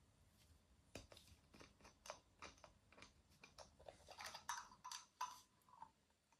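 Faint handling sounds: a flannel polishing cloth rustling as it is wound around the fingers, with a string of light clicks and taps from a small plastic dropper bottle being handled. The rustling is densest a little past the middle.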